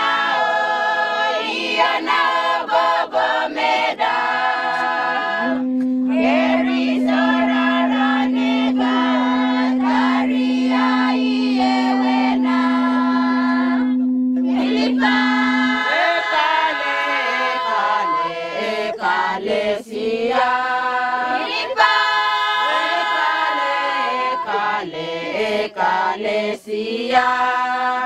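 A group of women singing together in chorus. Over the singing, a conch-shell trumpet sounds one long, steady low note for about ten seconds, starting about five seconds in.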